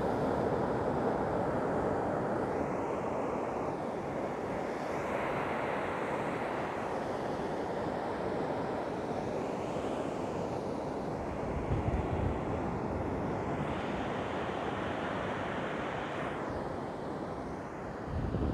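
Surf washing up a sandy beach, a steady rush that swells and ebbs every few seconds, with wind buffeting the microphone briefly about twelve seconds in.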